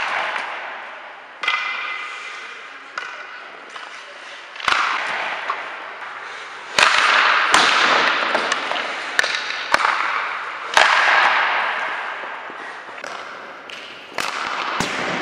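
Ice hockey pucks being shot with sticks in a large rink: about ten sharp cracks of stick on puck and puck against the boards, each ringing out in the hall.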